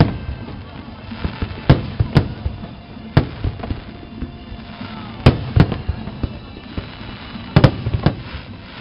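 Aerial firework shells bursting in a display: a string of sharp booms at irregular intervals, some in quick pairs, about ten in all.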